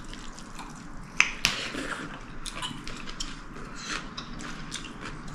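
Close eating sounds: chewing, with scattered small clicks and clinks of cutlery and dishes and two sharper clicks a little over a second in.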